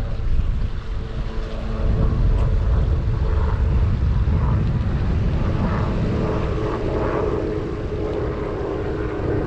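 Wind rumbling on the microphone, with a steady engine drone in the background that grows clearer in the second half.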